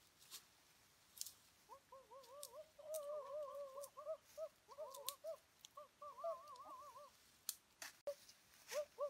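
A bird calls in a quick run of short up-and-down notes, stops about seven seconds in and starts again near the end. Dry leaves and twigs crackle and snap in the brush.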